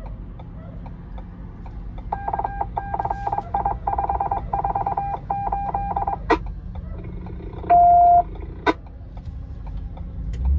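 Electronic beeping: a run of rapid, pulsing beeps for about four seconds, then a click, a single longer beep that is the loudest sound, and another click, over a low steady rumble.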